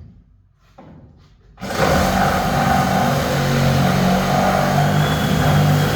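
DeWalt DCS382 cordless reciprocating saw with a wood blade starting up about a second and a half in and cutting through a wooden stud, running loud and steady at full speed.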